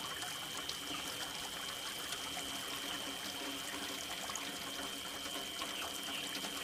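Steady rainfall with trickling water and scattered drop ticks, over a faint steady high-pitched tone.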